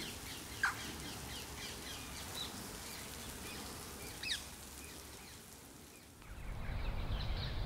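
Birds calling over a steady hiss of rain, with two louder sharp calls, one about a second in and one about four seconds in. About six seconds in the high hiss drops away and a louder low rumbling noise rises.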